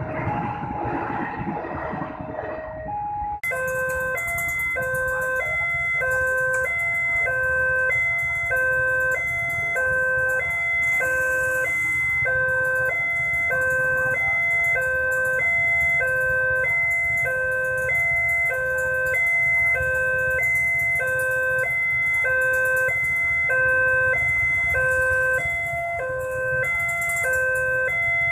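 A passenger train passes over a level crossing for the first few seconds. Then a railway crossing warning alarm starts abruptly about three seconds in: an electronic two-tone signal alternating high and low about once a second, over low traffic noise.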